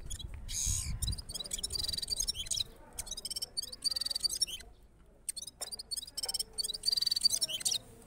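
Caged songbird known locally as gulsar singing a run of fast, high, trilling phrases, with a short pause a little before halfway through. A low rumble sits under the first second.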